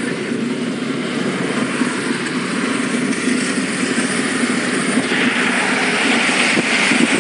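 Road noise of a moving car heard from inside the cabin: a steady low drone with tyre hiss on a wet road. The hiss grows clearly louder about five seconds in.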